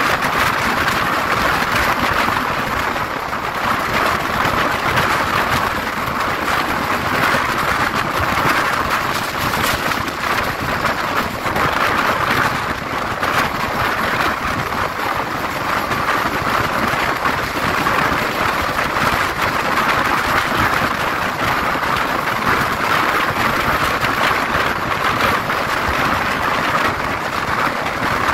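Steady rushing noise of a passenger train running at speed: wheels rolling on the rails with wind noise, unchanging throughout.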